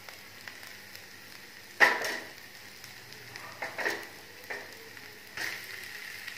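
Spiced oil and ginger-garlic-chili paste sizzling in a hot non-stick pan. Mashed boiled potato is dropped into the hot oil, with three sudden louder sizzles, the loudest about two seconds in and others near four and five seconds.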